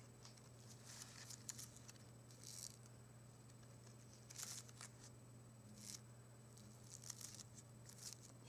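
Fingers brushing over rose and carnation petals in a bouquet: faint, soft, scratchy rustles in short brushes, about five of them, over a steady low hum.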